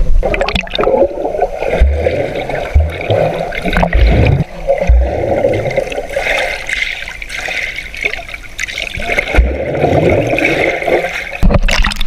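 Muffled water sloshing and gurgling heard through a camera held underwater, with several dull low thumps along the way. Near the end the camera breaks the surface and the sound opens up.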